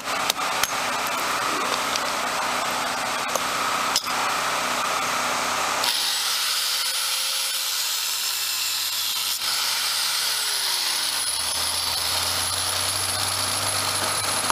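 Small electric grinder running steadily against a thermite-welded rail bond, grinding the weld down flush with the rail head. A few sharp metal taps of a hammer on a chisel knocking off slag come in the first few seconds, and the grinder's tone changes about six seconds in.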